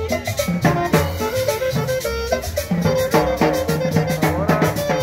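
Upbeat Latin dance-band music with drum kit, a bass line and melody instruments, keeping a steady beat.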